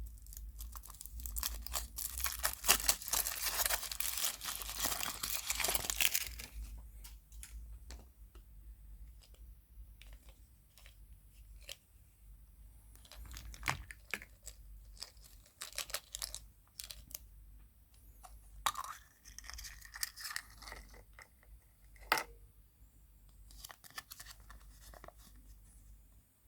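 Foil wrapper of a chocolate surprise egg being torn and crinkled off for about six seconds, then scattered small clicks and rustles of handling, with one sharp click a little past twenty seconds.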